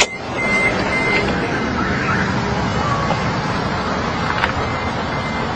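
Steady rushing background noise like distant road traffic, with a faint intermittent high whistle and a single click about four and a half seconds in.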